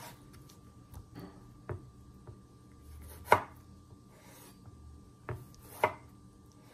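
Chef's knife slicing through a tomato and knocking against a wooden cutting board: several sharp, irregularly spaced knocks, the loudest about halfway through.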